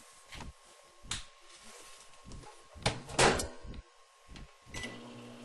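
Microwave oven being handled: a series of clicks and clunks from its door and controls, the loudest two about three seconds in. Near the end the oven starts running with a steady hum.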